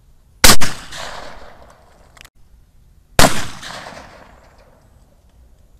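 Two shotgun shots fired at clay targets in trap shooting, about two and a half seconds apart. Each is a sharp, loud crack followed by an echo that rolls away over about a second.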